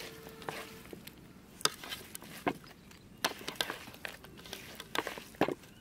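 A hand kneading and tossing shredded raw green mango with salt and crushed dried chilies in a bowl: irregular rustling with a few sharper clicks.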